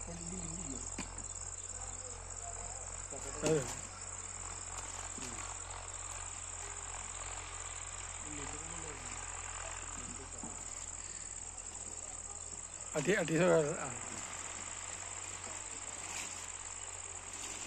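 Steady high-pitched chirring of insects, with brief snatches of a man's voice twice.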